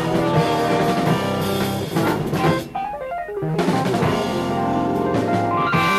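Jazz-rock fusion quartet playing live: drum kit, electric bass, electric guitar and keyboards with synthesizer. The band thins out briefly about halfway, then a long rising run climbs through the second half.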